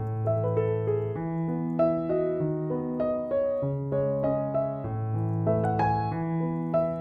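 Background piano music: a gentle melody of short notes over held bass notes.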